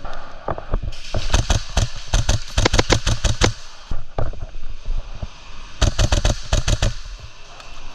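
Airsoft guns firing in rapid bursts of sharp cracks. The densest stretch comes in the first few seconds, then a single shot, then another short burst about six seconds in.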